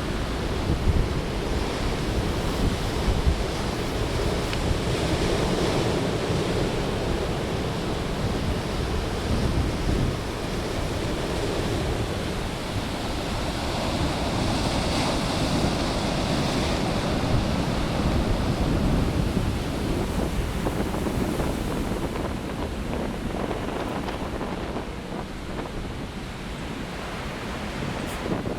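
Heavy storm surf breaking and rushing in, a continuous roar that swells and eases, with wind buffeting the microphone.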